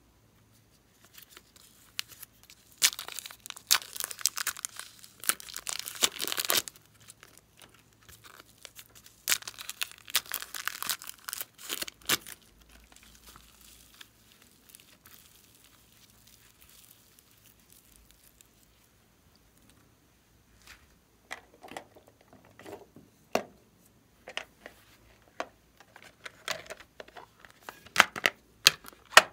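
Plastic packets of soft modelling clay crinkling and tearing open in two bursts, one per packet. Then the clay is handled softly and faintly, and from about three quarters of the way in a hard plastic case clicks and taps in the hands.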